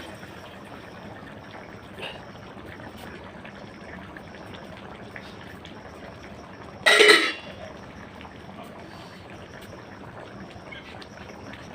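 Steady liquid trickling and bubbling, with one brief louder burst about seven seconds in.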